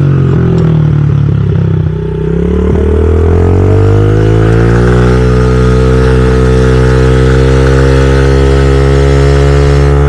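Honda CRF50F mini dirt bike's 49cc four-stroke single-cylinder engine on its stock exhaust, being ridden. The engine note drops about two seconds in, climbs back over the next few seconds, then holds at a steady pitch.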